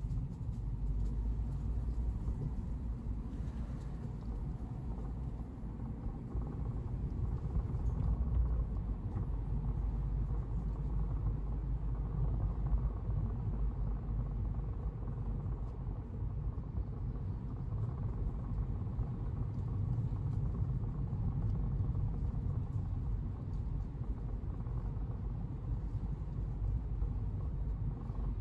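Car driving along a road, recorded from an onboard camera: a steady low rumble of tyres and engine.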